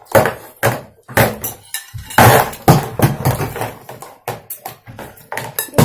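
Irregular knocks and clatter of small toy pieces being handled, knocked together and dropped.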